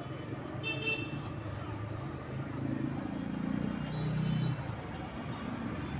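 Road traffic with a steady engine hum. A short, high-pitched horn toot comes about a second in, and a louder engine sound rises in the middle and then drops off.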